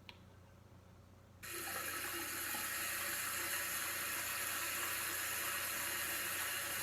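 Water tap running: a steady stream of water splashing into a sink, starting about a second and a half in.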